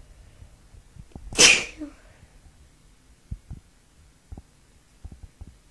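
A woman sneezes once: a single sharp, noisy burst about a second and a half in.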